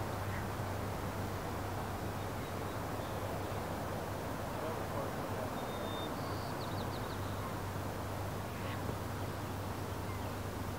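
Steady outdoor background noise by open water with a low hum under it, and a few faint, brief bird calls about six to seven seconds in and again shortly after.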